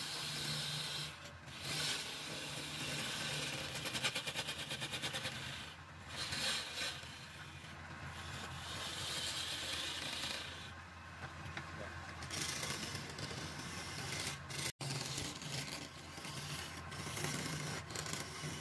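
Wood lathe running with a steady hum while a hand-held chisel scrapes and cuts the spinning wood, the rough cutting hiss coming and going in strokes. About four seconds in there is a quick rattling stretch, the loudest part.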